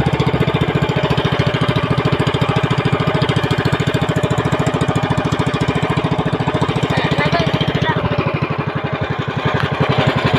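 Outrigger fishing boat's small engine running steadily under way, with an even, rapid firing beat. Spray and water rush past the hull, and the engine dips slightly for a moment near the end before picking up again.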